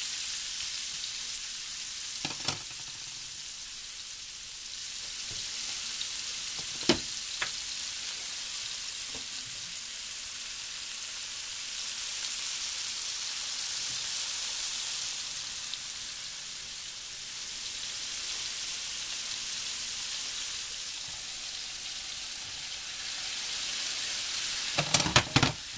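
Mushrooms frying in olive oil in a pan: a steady sizzle that slowly swells and fades, with a couple of sharp knocks early on and a quick clatter of knocks near the end, as of stirring against the pan.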